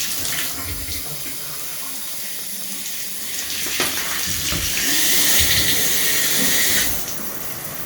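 Water running in a bathtub as a newly installed tub spout and its shower diverter are tested. About five seconds in, a louder, higher hiss of spray comes in for about two seconds and then cuts off suddenly.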